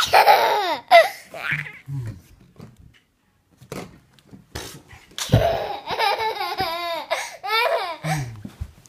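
Toddler laughing in bursts, with a lull in the middle and a longer run of laughter from about five seconds in.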